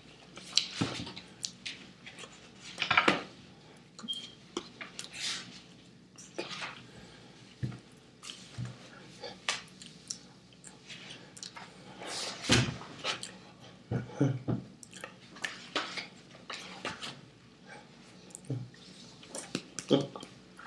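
Irregular taps, slaps and rustles of hands striking and brushing each other and the chest of a cotton hoodie while signing in sign language, some of the taps sharp and loud.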